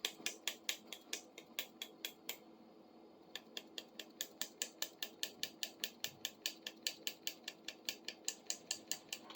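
Pliers being opened and closed over and over, their freshly oiled pivot joint clicking at about five clicks a second as it is worked loose, with a brief pause partway through.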